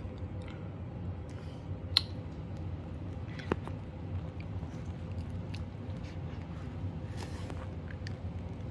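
Small dog chewing and mouthing a plush carrot toy: soft squishing with faint scattered ticks and two sharper clicks, over a steady low hum.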